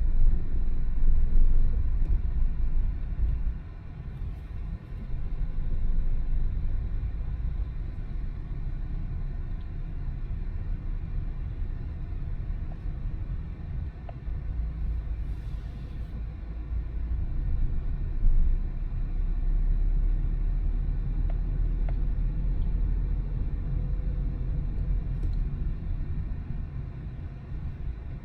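Car driving through town: a steady low engine and road rumble that swells and eases as the car speeds up and slows.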